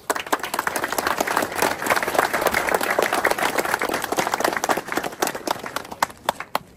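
Crowd applauding: many hands clapping, starting suddenly and thinning to a few scattered claps near the end.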